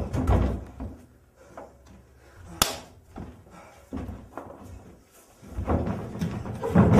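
Wrestlers scuffling on a ring mat: a few dull thuds, then one sharp slap about two and a half seconds in. Louder, busier scuffling starts near the end.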